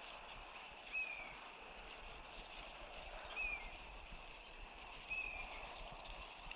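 A bird giving three short, high-pitched calls that slide downward, spaced about two seconds apart, over a steady faint outdoor hiss.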